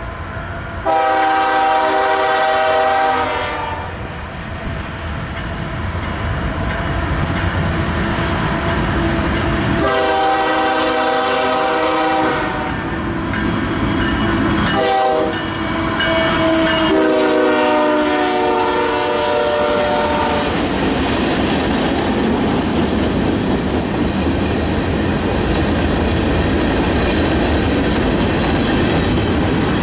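Canadian Pacific freight train's diesel locomotive blowing its multi-chime air horn in the grade-crossing pattern of long, long, short, long as it approaches. This is the signal for a road crossing ahead. The horn is followed by the steady rumble of the locomotives and freight cars rolling past.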